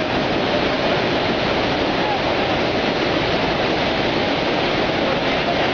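Jog Falls, the Sharavathi River plunging down a high cliff, giving a steady, loud rushing of falling water.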